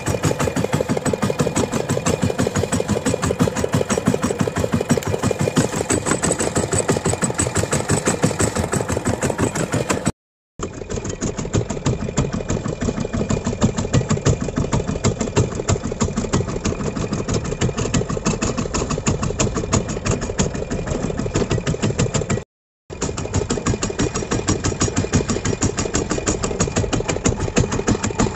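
A fishing boat's engine running steadily with a rapid, even knocking beat; the sound drops out briefly twice.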